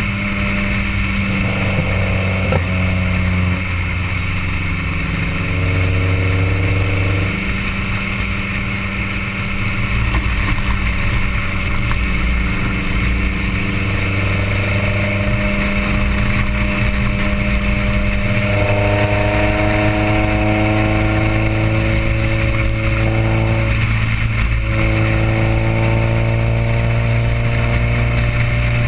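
Honda B16A four-cylinder VTEC engine heard through its custom sidepipe exhaust (4-1 header, test pipe, resonator and SLP Loud Mouth muffler) while the car is driven. The loud exhaust note climbs slowly and drops back a few times at gear or throttle changes. Tyre and road noise sit underneath, picked up by a microphone right beside the side-exit pipe.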